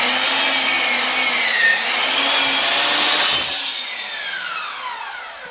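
MAXIMUM 15-amp 10-inch sliding mitre saw running and cutting through wood, its motor pitch dipping and recovering under load. After about three and a half seconds the cut ends and the blade winds down with a steadily falling whine.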